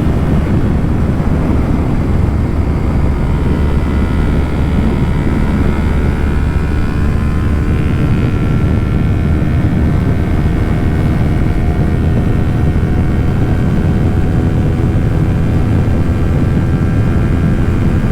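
Kawasaki Ninja 400's parallel-twin engine running at a steady highway cruise, mixed with heavy wind and road noise, picked up by a microphone inside the rider's helmet.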